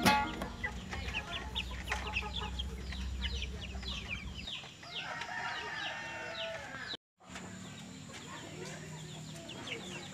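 Chickens clucking, many short calls in quick succession, with a brief break in the sound about seven seconds in.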